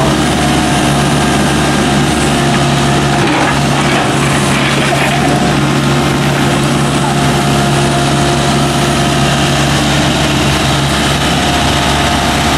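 Volvo EC55D mini excavator's diesel engine running steadily as the machine digs and loads soil.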